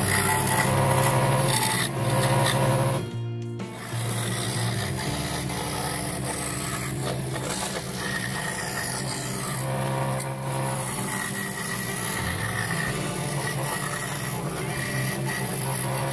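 Record Power scroll saw running, its fine reciprocating blade cutting through a thin wooden board with a steady rasping. The sound briefly cuts out about three seconds in, then carries on.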